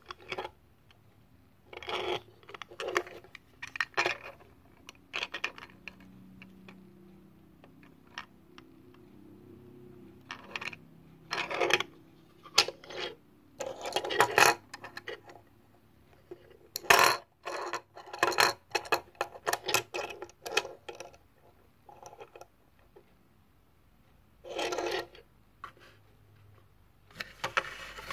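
Small Tomica toy cars handled by hand on a wooden tabletop: rolled, bumped together and set down in irregular bursts of clicking and rattling, some about a second long, with short pauses between.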